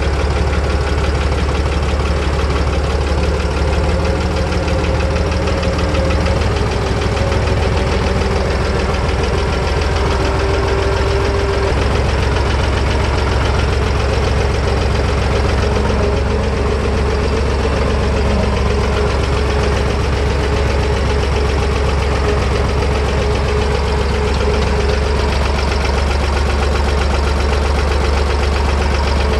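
Fendt Farmer 2 DE vintage tractor's diesel engine running steadily under way, heard close up from the driver's seat, with a rapid, even beat.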